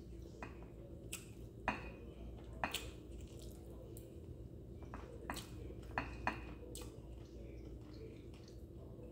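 A metal fork clinking and scraping against a ceramic plate while picking through fish, about seven sharp clinks spread out unevenly, over a steady low hum.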